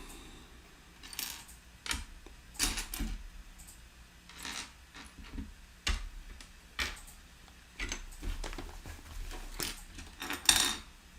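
Small plastic building-block pieces clicking and rattling in irregular bursts as they are sifted through by hand, the loudest rattle near the end.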